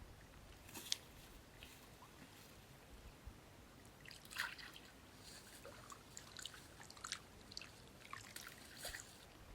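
Faint small drips and splashes of water, a few short scattered ones.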